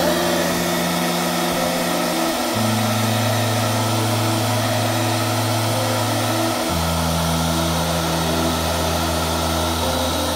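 Hand-held blow dryer running steadily, blowing hot air onto spilled wax to remelt it.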